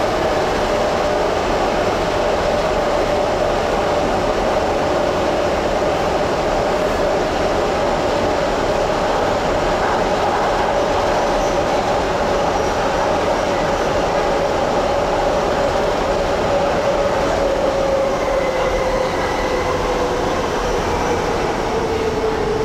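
Docklands Light Railway train running, with a steady rumble of wheels on rail and a whine that slowly falls in pitch over the last few seconds as the train slows.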